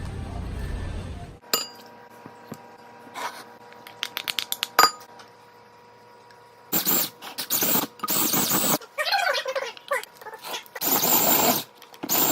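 A car's low rumble that cuts off about a second and a half in, followed by kitchen sounds: clinks and taps of utensils against bowls, then several loud rushing noises in the second half.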